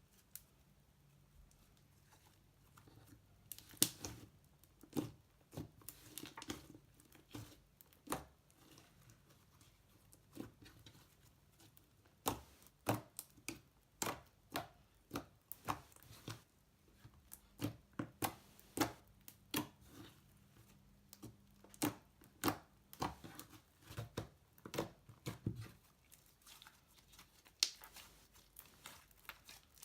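Slime being squished and poked by hand, giving irregular sharp clicks and pops that come thick and fast through the middle stretch and thin out near the end.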